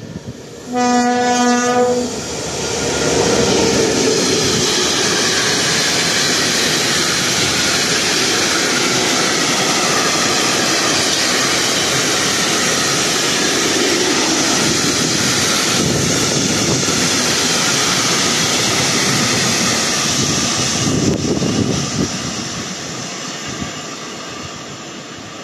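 An M62 diesel locomotive, with a two-stroke V12 engine, sounds its horn in one blast of about a second, shortly after the start. It then runs through the station hauling a long train of tank wagons, and their wheels clatter over the rail joints. The noise fades in the last few seconds as the train moves away.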